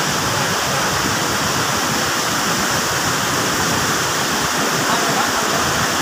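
Steady, even rush of falling water from a waterfall, unbroken throughout.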